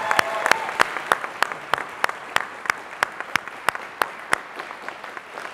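Congregation applauding, with one clapper's sharp claps standing out at about three a second over the general clapping; a cheer trails off just at the start, and the applause dies down toward the end.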